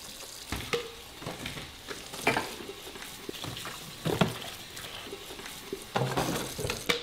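Kitchen faucet running into a sink full of dishes, a steady hiss, with a handful of clinks and knocks as a cup and dishes are scrubbed and handled.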